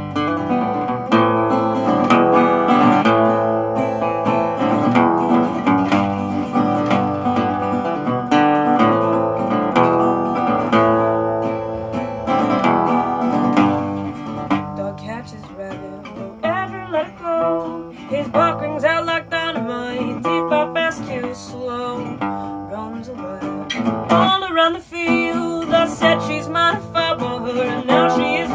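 Resonator guitar played solo as an instrumental break: strummed chords for about the first half, then picked lead lines with notes that glide up and down in pitch.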